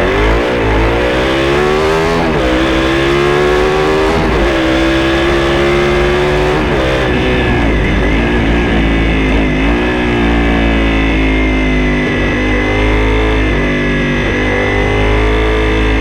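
Honda VTR 1000 SP1's 90-degree V-twin through aftermarket Dominator silencers, pulling hard. Its pitch climbs and drops back several times in the first ten seconds, like gear changes, then holds a steadier, higher note.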